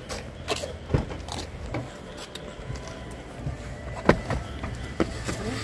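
Someone getting into a car's back seat through an open rear door: light footsteps and small clicks, then one sharp knock about four seconds in, over a low steady hum.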